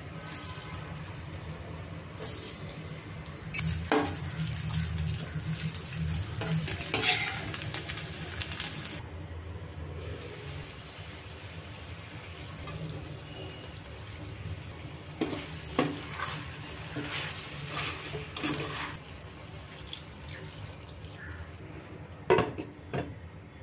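Pan cooking: ingredients sizzling in hot oil and being stirred, with several sharp clinks of a utensil against the pan. Near the end there is a sharp knock as a glass lid is set on the pan.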